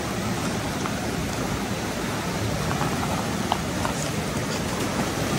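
Open, fast-flowing water of the Zanskar River rushing beside its ice shelf: a steady rushing hiss, with a few faint ticks.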